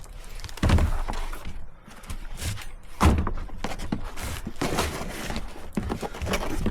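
Irregular knocks and clatter over a low rumble, with two louder thumps about a second in and about three seconds in.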